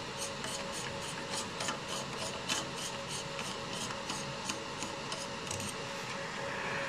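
F-theta field lens being unscrewed by hand from a fiber laser marker's scan head: a run of regular scraping ticks, about four a second, from the threads and the fingers on the metal barrel. The ticks stop as the lens comes free, over a steady faint hum.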